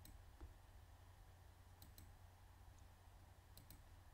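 Near silence with three faint computer mouse clicks: one at the start, then two more about two and three and a half seconds in, each a quick double tick of button press and release, over a faint low hum.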